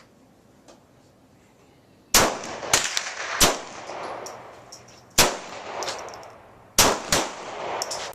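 Six gunshots from a firearm fired at a target can, each trailing off in a long echo: three in quick succession about two seconds in, one a little after five seconds, and two close together near the end.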